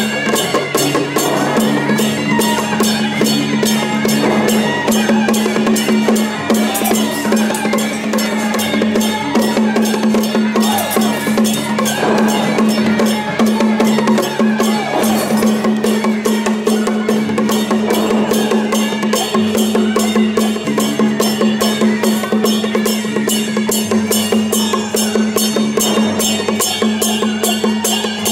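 Loud temple procession music: drums and fast, evenly repeating percussion strikes over a steady held tone.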